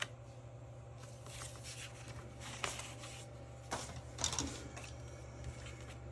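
Paper and card being handled and pressed down by hand while sticking pieces into a journal: a sharp click at the start, then several short rustles, the loudest about four seconds in, over a steady low hum.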